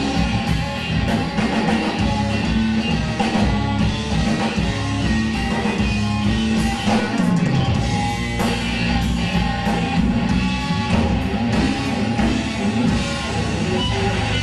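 Live rock band playing an instrumental passage: electric guitar over bass guitar and a drum kit, steady and loud.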